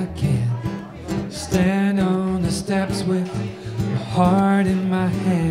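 A live song on two acoustic guitars, strummed and picked together, with a man singing in two phrases, about one and a half and four seconds in.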